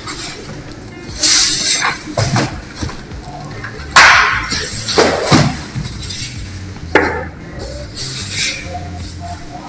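Polystyrene foam packing and cardboard box flaps scraping and rustling in about six sudden bursts as the foam end caps are pulled out around a boxed scanner, over background music with a steady low bass line.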